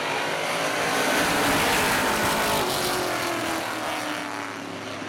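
A pack of street stock race cars passing on an oval track, several engines running hard together. The sound swells to its loudest about a second and a half in, then fades as the cars move away.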